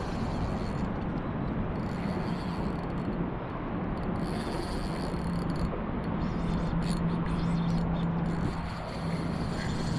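Steady wind and water noise on an action-camera microphone over open water, with a low steady hum underneath.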